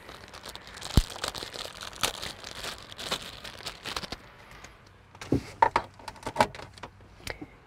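Rustling and scattered plastic clicks and knocks of hands handling a cigarette-lighter phone charger adapter and plugging it into a 12-volt dash outlet, with a sharp knock about a second in and a cluster of clicks after about five seconds.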